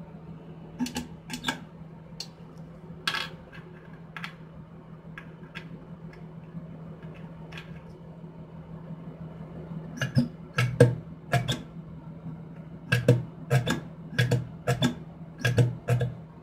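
Chrome click-clack pop-up basin stopper pressed down by a finger again and again, snapping shut and popping open with sharp clicks. The clicks are scattered at first and come thick and fast in the last six seconds, over a steady low hum.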